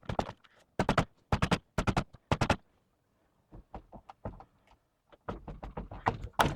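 Hands smacking a 1996 Dodge Dakota's steering wheel to knock it loose from the steering shaft without a puller: loud knocks in quick pairs during the first few seconds, then lighter knocks and rattles.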